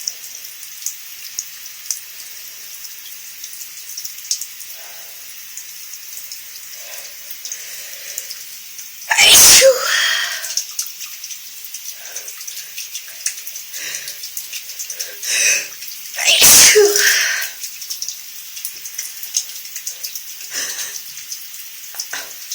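Two loud sneezes under a running shower, about nine and sixteen seconds in, from someone with a slight cold. The shower spray hisses and drips steadily throughout.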